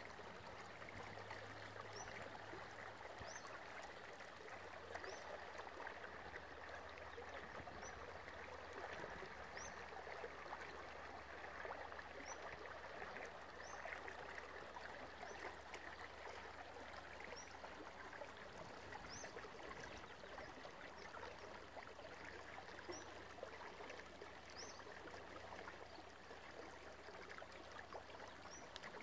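Small shallow creek flowing: a faint, steady rush of running water. Short high chirps sound every second or two throughout.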